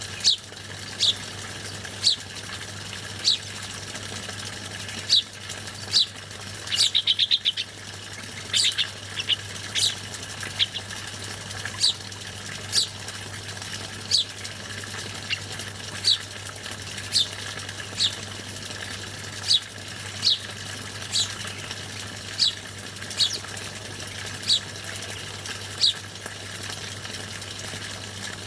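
A bird chirping: short, high, falling chirps about once a second, with a quick trill of several rapid notes about seven seconds in, over a steady background hiss.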